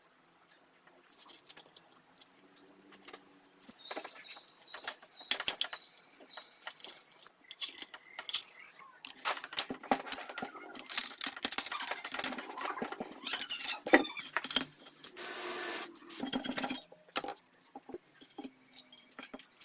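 Metal parts and hand tools clicking, clinking and rattling as they are handled, busier in the second half. Near the end comes a steady hiss lasting about a second and a half.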